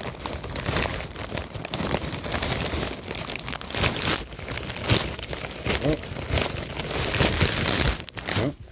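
Thin white plastic bag crinkling and rustling continuously in irregular crackles as it is handled and worked open.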